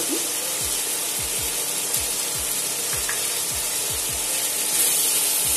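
Chopped tomatoes and spices sizzling in a nonstick pan on an induction cooktop, with a spatula scraping and stirring them near the end. Under the sizzle there is a steady hum and a soft low thump repeating two or three times a second.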